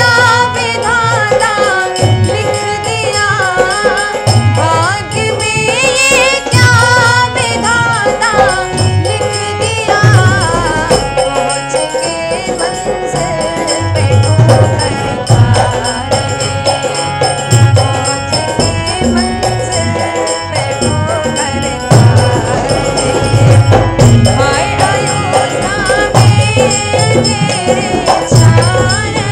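A woman singing a Hindi devotional Ram bhajan, accompanied by harmonium with steady held tones and by tabla and dholak keeping a regular rhythm.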